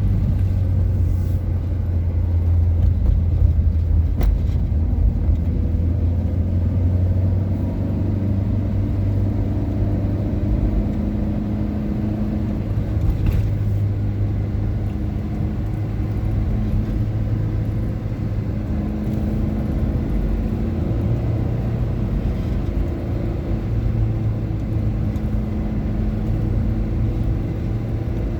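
Car engine and road noise while driving: a steady low hum whose pitch shifts a little now and then as speed changes.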